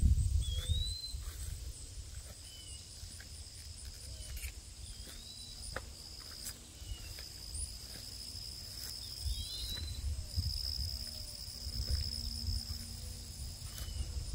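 Insects droning steadily in a high, even tone, with short rising bird chirps every second or two and a low rumble on the microphone.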